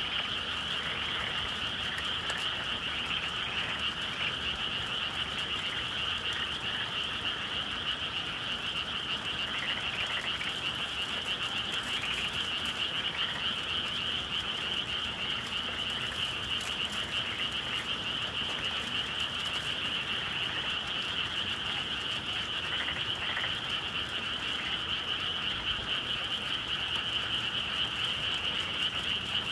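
A dense chorus of many frogs calling steadily without a break, the massed calls blending into a continuous high trill.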